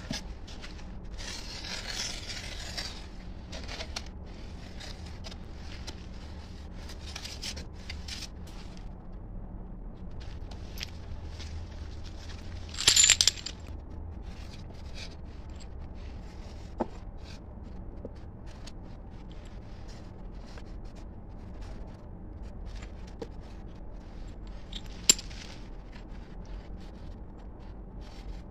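Small steel trowel scraping and smoothing wet cement mortar in a foam mould, a run of short scrapes and light taps. A brief, louder clatter comes about halfway through and a single sharp click near the end.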